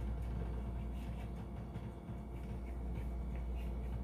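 Faint scraping of a blade trimming the edge of rolled puff pastry dough on a stone countertop, over a steady low hum.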